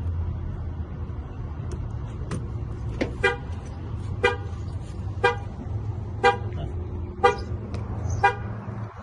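Chevy Traverse's anti-theft alarm going off: the car horn sounds short honks once a second, starting about three seconds in. The alarm is set off by the door being unlocked with a pick instead of the remote.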